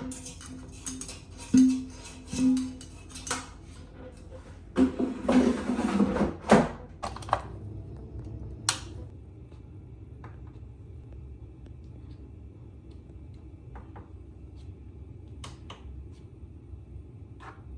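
Clattering and knocking of hard plastic parts being handled, with a dense burst of rustling and clatter about five seconds in, then scattered light clicks over quiet background music.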